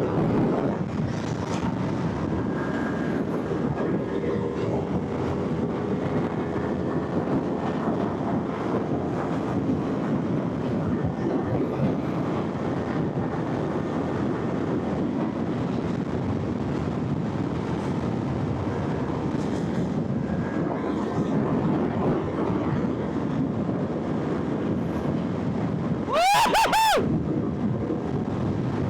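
Motorcycle riding sound: a steady engine drone mixed with wind and road noise. Near the end a louder, high-pitched sound lasts about a second, its pitch rising and then falling.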